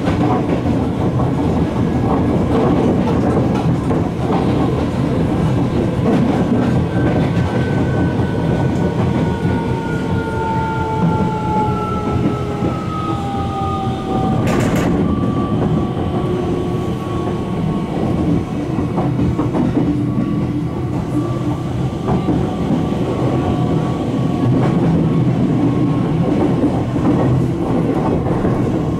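On-board running sound of a Tokyo Metro 17000 series train: steady wheel-on-rail rumble with the whine of its Hitachi SiC-VVVF 8-pole traction motors, two thin tones slowly falling in pitch through the middle. One sharp click about halfway through.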